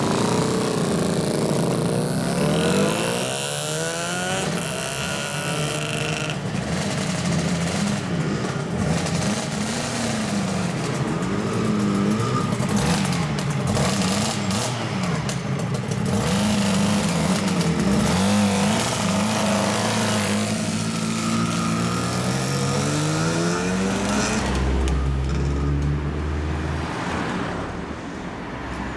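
Two-stroke motorcycles, a Suzuki RG250Γ and a Kawasaki KR500 among them, revving and pulling away, their engine pitch climbing and dropping again and again. Near the end a heavy truck's diesel engine rumbles low in street traffic.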